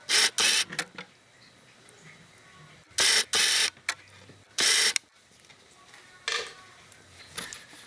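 Camcorder lens motor whirring in short bursts as the lens zooms and hunts for focus: a pair right at the start, another pair about three seconds in, one near five seconds and a fainter one near six.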